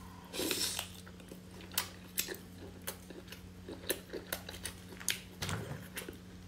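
Close-up mouth sounds of biting into and chewing a large cooked prawn: many short wet clicks and smacks, with a louder bite about half a second in.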